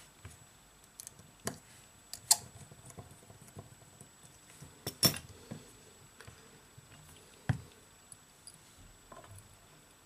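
Scattered sharp little clicks and taps of small repair tools and tiny parts, the sounds of an iPhone 7 being put back together by hand. The loudest clicks come about two and five seconds in, with another near seven and a half seconds.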